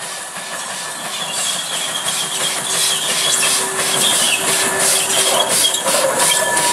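GWR pannier tank steam locomotive No. 9681 chuffing past with a goods train, a steady run of exhaust beats a few per second that grow louder as it draws near.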